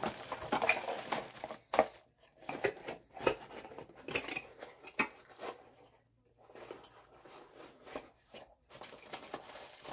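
Small metal hand tools and their packaging being handled: scattered light clinks and rustling.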